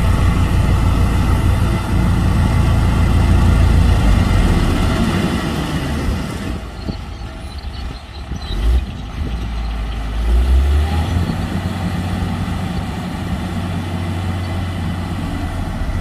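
Heavy diesel engine of road-construction machinery running under load, a steady low rumble. It eases off in the middle, swells again briefly and then runs on steadily.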